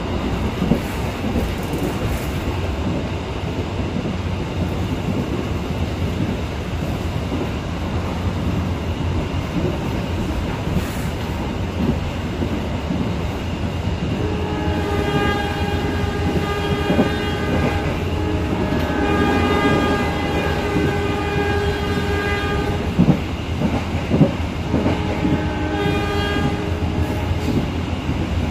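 Steady rumble and wheel clatter inside a moving passenger coach. About halfway through, the CC201 diesel locomotive's horn sounds several long blasts, the semboyan 35 warning signal. A couple of sharp knocks come near the end.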